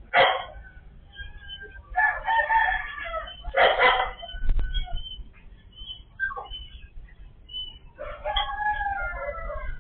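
Roosters crowing, with one long crow about two seconds in and another near the end, and shorter sharp calls between. The sound is thin, with nothing in the highs, as picked up by a security camera's microphone.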